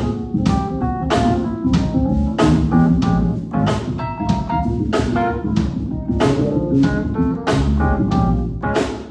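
A band playing a jazzy groove live: drum kit keeping a steady beat under organ-toned keyboard chords and bass.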